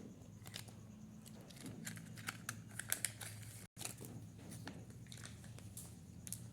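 Hands handling Kinder Joy packaging and plastic toy pieces: scattered small clicks and crinkles over a low hum, busiest a couple of seconds in, with the sound cutting out for an instant in the middle.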